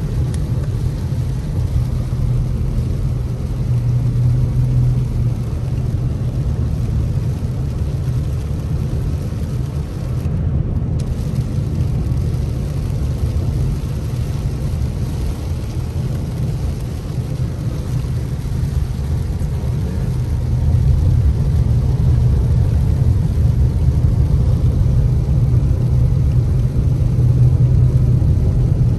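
A car driving on a rain-soaked road, heard from inside the cabin: a steady low road rumble with the hiss of tyres and rain on wet pavement, growing louder about twenty seconds in.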